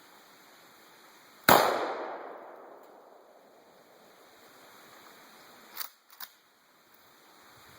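A 20-gauge shotgun fires once, about one and a half seconds in, and the report dies away over about a second. Two sharp clicks follow near the end.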